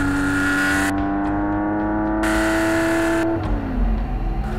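1970 Porsche 911T's 2.2-litre air-cooled flat-six engine pulling under load, its pitch climbing slowly. The pitch falls about three and a half seconds in and then starts climbing again.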